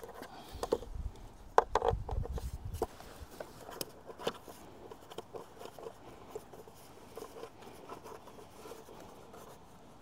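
Handling noise from the hoses and fittings of a portable water filter: plastic clicks, taps and rustling, busiest in the first three seconds with a louder knock about a second and a half in, then only scattered small clicks.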